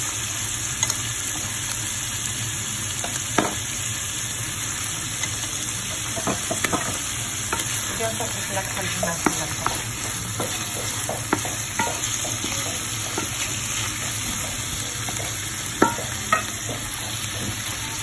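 Prawns and squid sizzling in oil in a frying pan while being stirred, with a steady hiss and scattered sharp clicks of a utensil knocking against the pan.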